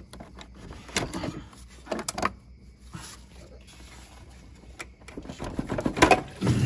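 A rubber lower radiator hose being twisted and worked off its plastic push-on fitting by hand: irregular clicks, creaks and rubbing, with a louder burst of noise about six seconds in as the hose comes free.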